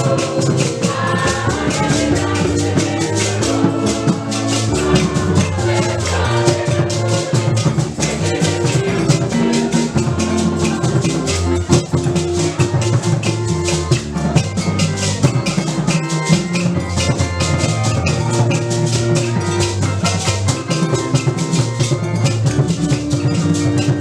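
Lively music with drums and shakers keeping a steady, dense beat under sustained pitched notes.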